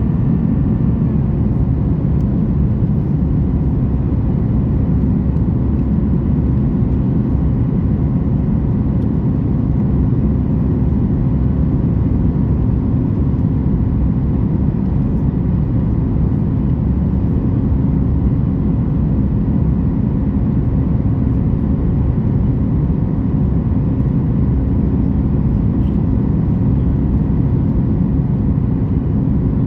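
Steady cabin roar of a Boeing 737 MAX 8 in flight: airflow and its CFM LEAP-1B engines, heard from inside the cabin, with a faint steady hum running through it.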